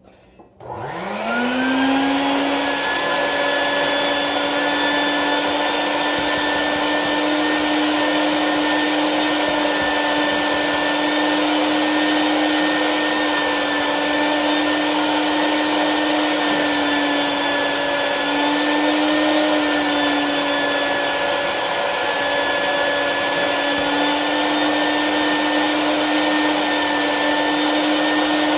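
Bucket-top wet/dry shop vacuum switched on about a second in, its motor spinning up with a rising whine, then running steadily. It is sucking dust and broken concrete out of a drilled anchor hole in a concrete floor through a long rigid wand, with slight dips in pitch now and then.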